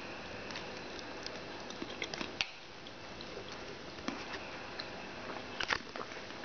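Steady background hiss with scattered small clicks and taps, a short cluster of them about two seconds in and a louder cluster near the end.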